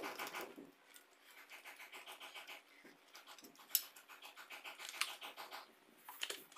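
A dog panting fast and evenly, about six breaths a second, with two sharp metallic clinks against a steel bowl.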